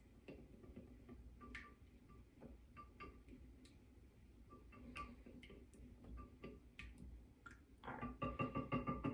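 Wire whisk beating an egg and buttermilk mixture in a small bowl: irregular clinks of the wires against the bowl, each ringing briefly. Near the end it breaks into a fast, louder run of strokes.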